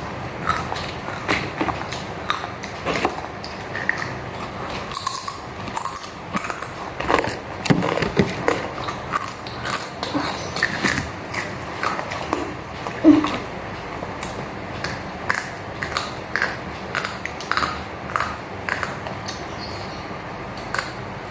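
Eating sounds close to the microphone: chewing and mouth noises with many small clicks and knocks scattered throughout.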